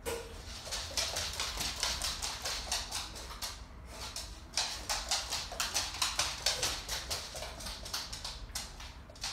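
Small dog panting fast and steadily, about five breaths a second, with a short pause about four seconds in.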